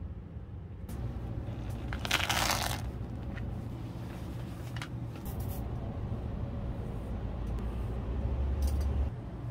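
Handling noise at a work table: a brief crinkling rustle about two seconds in and a few light taps later, over a steady low hum.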